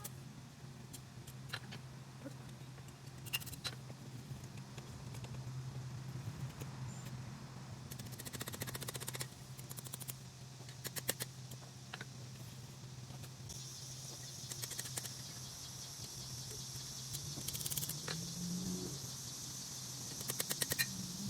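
Light, quick metal taps and clicks in short rapid runs, several times, over a steady low hum while small forged pieces are worked.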